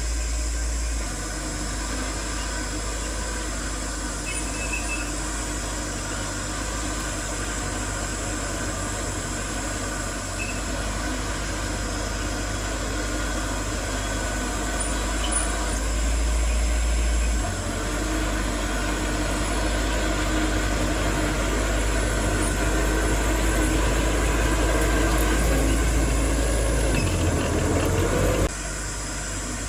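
Heavy diesel earthmoving machinery (dump trucks and a bulldozer) running steadily with a deep engine rumble, growing louder as it works harder partway through, then dropping abruptly to a quieter level shortly before the end.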